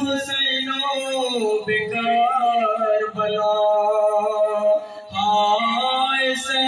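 A man reciting a noha, an Urdu mourning lament sung solo without accompaniment, holding long wavering notes through a microphone, with a short break for breath about five seconds in.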